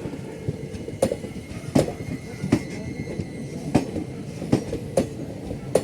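Passenger express train's wheels running over rail joints: a string of sharp clacks, roughly one a second, over a low rolling rumble, with a faint wheel squeal in the middle.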